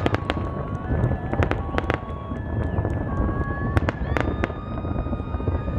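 Fireworks finale: a rapid series of sharp bangs and crackles from bursting shells. Steady high-pitched tones, each held for about a second, sound over them.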